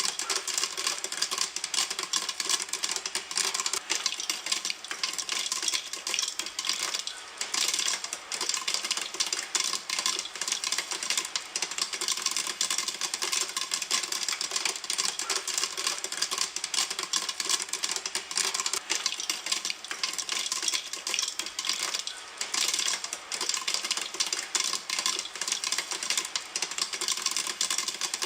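Popcorn kernels popping in a pan: a dense, continuous run of sharp pops and crackles.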